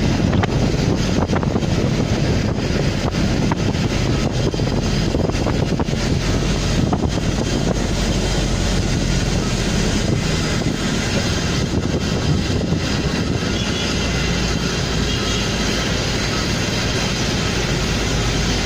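Steady engine and road noise from a moving vehicle, with wind rushing over the microphone.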